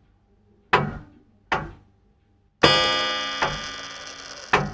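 Clock-ticking transition sound effect: sharp tocks about once a second, with a ringing chime-like chord struck about two and a half seconds in that fades slowly beneath them, marking a skip forward in time.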